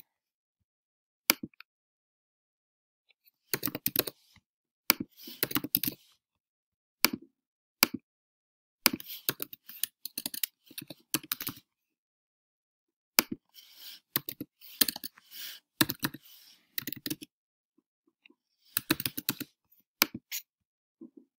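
Computer keyboard typing in short bursts of keystrokes, with pauses between the bursts, as text is entered into form fields.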